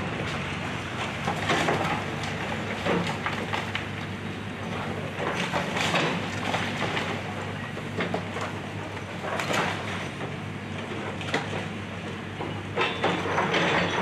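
Hydraulic excavator tearing down a house: the engine runs steadily under irregular crunching and crashing of breaking debris, with the loudest crashes near the middle and near the end.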